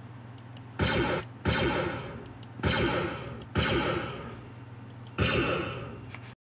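E-11 stormtrooper blaster shot sound effect played five times from an MP3 sound module, each shot with a sharp start that fades away over about a second. Small clicks of the tactile push button come just before each shot, over a steady low hum.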